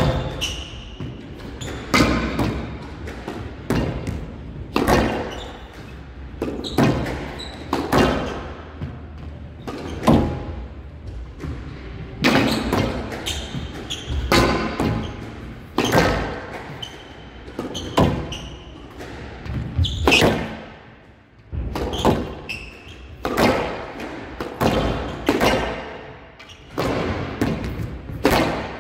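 Squash rally: the ball is struck by rackets and hits the court walls in a run of sharp knocks, about one a second, echoing in a large hall.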